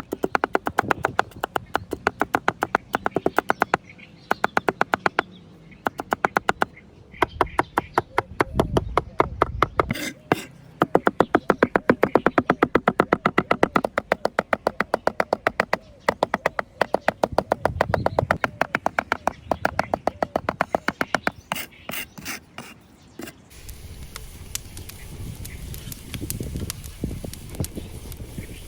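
A knife chopping fast on a cutting board, about six or seven strokes a second, in runs with short pauses. About three-quarters of the way through the chopping stops and a steady hiss takes over.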